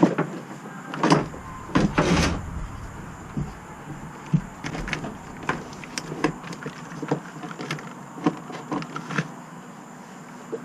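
Boat control cables being pulled through the hull, sliding and rubbing as they drag, with irregular scrapes and knocks. The loudest drags come in the first two seconds or so.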